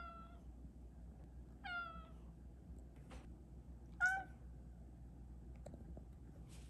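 Korean shorthair tabby cat answering with three short meows about two seconds apart, each dipping slightly in pitch at its end.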